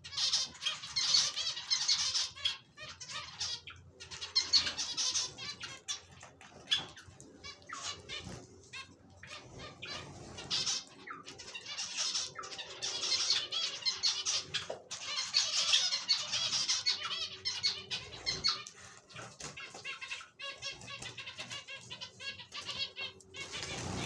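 A flock of zebra finches calling all at once, a dense chatter of short, high, nasal notes that swells into louder bouts every few seconds, with wings fluttering now and then as birds take off and land.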